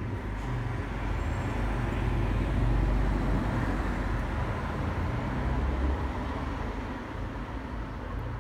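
A motor vehicle passing on the street: a low engine and tyre rumble that swells to its loudest about three seconds in, then slowly fades away.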